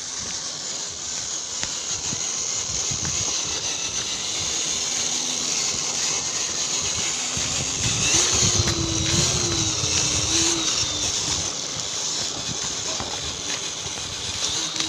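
4WD RC car's electric motor and drivetrain running as it drives, with a steady high whine and a wavering pitch rise about halfway through.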